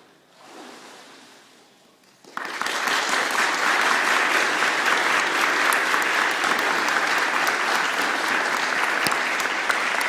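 A church congregation breaks into applause about two seconds in, many people clapping in a steady, dense patter for the rest of the time.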